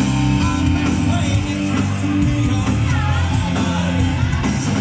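Live rock band playing loud in a club: electric guitar, bass and drums, with a singer's voice above them.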